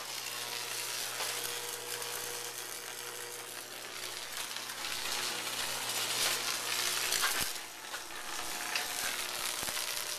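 High-voltage electric arc from a 34.5 kV pole transformer burning into moist sand, sizzling and crackling continuously over a steady low hum as it melts the sand into glass fulgurites. The sizzle dips briefly about three quarters of the way through, then picks back up.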